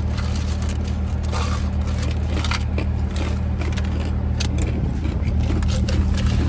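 Car engine running, a steady low hum heard from inside the cabin, with scattered small clicks and rustles over it.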